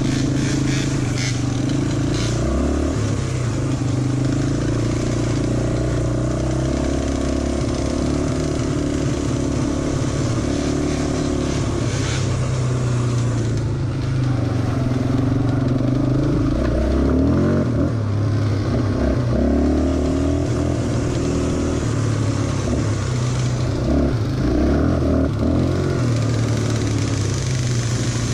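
ATV engine running at low speed on a muddy trail, its pitch rising and falling with the throttle, with a few sharp clicks near the start.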